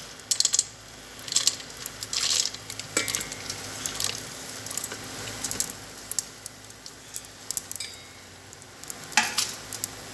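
Chopped almonds and cashews dropping off a steel plate into hot ghee in a steel pot, sizzling in the fat, with several short bursts of sharp clicks as the nuts hit the pot.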